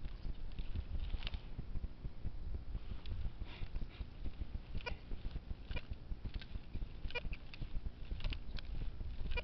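A metal detector being swept over grass: about ten short, irregular clicks and faint brief chirps over a steady low rumble.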